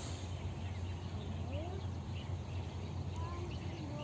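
Outdoor ambience: a steady low rumble with faint bird chirps and a few short rising bird calls, the calls clustering near the end.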